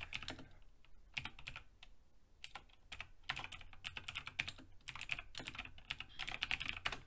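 Typing on a computer keyboard: quick runs of keystrokes in several bursts with short pauses between them, as a search is typed in.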